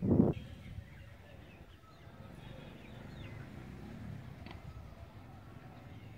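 Outdoor ambience: a faint steady low rumble with a few faint bird chirps, after a brief loud burst of low noise at the very start.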